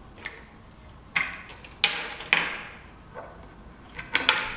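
Test leads with banana plugs being pulled from and pushed into the terminals of a demonstration DC machine: several sharp plastic-and-metal clicks a second or so apart, the loudest three in the middle, then a quick cluster of clicks near the end. The leads are being reconnected so that only the field electromagnets stay powered.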